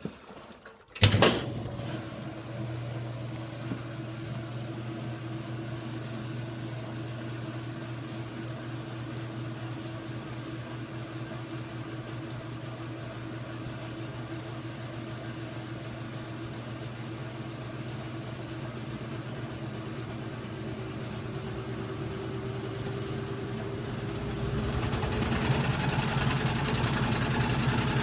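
Washing machine running with a steady motor hum after a sharp knock about a second in. Near the end a whine rises slowly in pitch and the sound turns louder and rougher as the drum speeds up, into a loud shaking noise.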